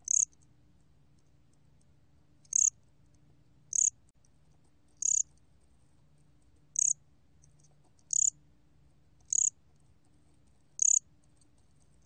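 A 곰귀뚜라미 (bear cricket) chirping, recorded at 23 °C: eight short, high-pitched chirps spaced about one and a half seconds apart.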